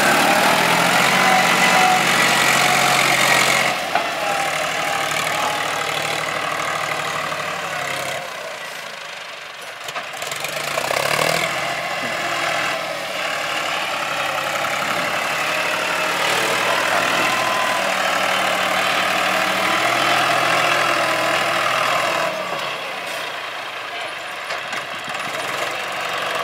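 John Deere tractor's diesel engine working under load as it pushes soil with its front blade. Its pitch rises as it revs up at the start, it drops back about eight to ten seconds in, then it picks up again and eases off near the end.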